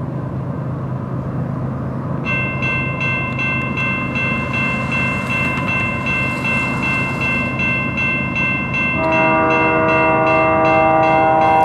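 Railway level-crossing warning bell starts ringing about two seconds in, in steady, even strokes, over the low rumble of an approaching CP freight train. About nine seconds in the locomotive's horn joins, a held chord of several notes, and the sound grows louder.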